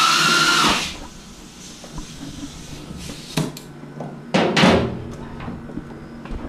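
A power tool running with a steady whine cuts off under a second in, followed by scattered clanks and knocks of tools on the engine, the loudest a short noisy burst about four and a half seconds in.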